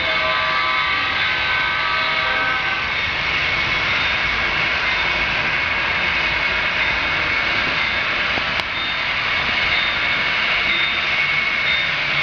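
Model trains running on a large layout: a steady whir and hiss of locomotive motors and wheels rolling on the rails.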